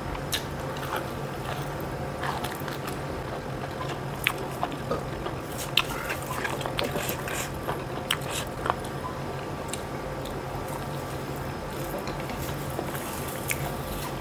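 A person chewing and biting food close to the microphone, with sharp wet mouth clicks and crunches clustered in the middle, over a steady low hum.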